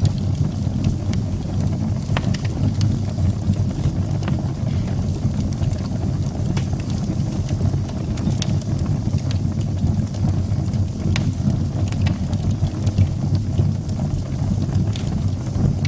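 Wood fire burning in a fireplace: a steady low rumble of flames with scattered sharp crackles and pops at irregular intervals.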